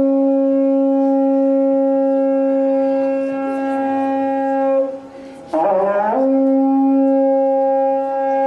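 Brass horn blown in two long, steady held notes on the same pitch, the first about five seconds, the second about two and a half, with a short wavering, bending phrase between them.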